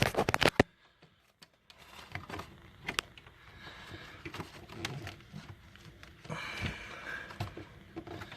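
Handling noises as a small decor plant is set into the terrarium bedding: a quick cluster of sharp clicks at the start, then scattered light taps and soft rustling.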